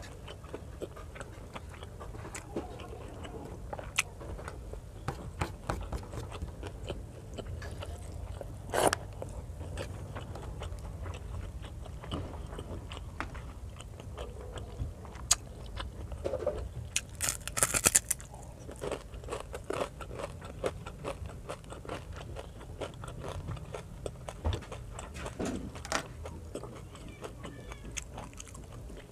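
Close-miked eating by hand: wet chewing, lip smacks and crunching of rice in coconut-milk sauce and fried fish, with many sharp clicks throughout. A stronger crunch comes about nine seconds in, and the loudest sound is a brief crackling burst around eighteen seconds.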